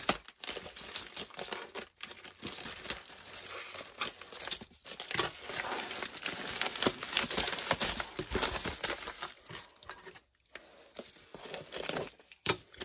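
A padded paper mailer being cut open with scissors and torn apart by hand: irregular crinkling and rustling of the paper with sharp snips and tearing, broken by a few short pauses.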